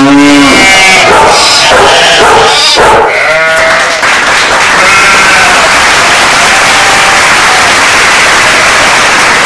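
Loud, wavering animal-like cries, several in the first four seconds, giving way to a steady rushing hiss with a few faint brief tones.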